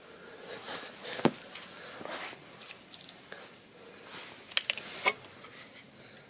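Plastic connectors and wiring being handled behind a car stereo: a sharp click about a second in, a few lighter clicks near the five-second mark, and soft rustling between them.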